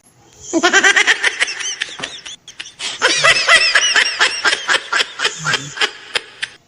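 Laughter: two runs of quick, high-pitched bursts, the second longer, with a short break about two seconds in.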